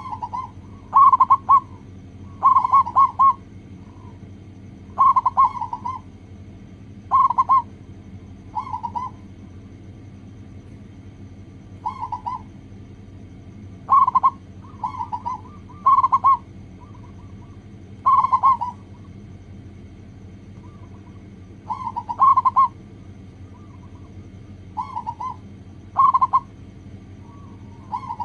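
Zebra dove (local perkutut) cooing: short rippling coo phrases repeated every second or two, with a couple of seconds' pause near the middle, over a faint steady hum.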